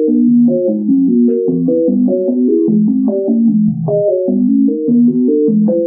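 Synthesized keyboard chords changing every quarter second or so in a quick, even, tuneless run: text turned into sound, its ASCII characters encoded as harmonic chords.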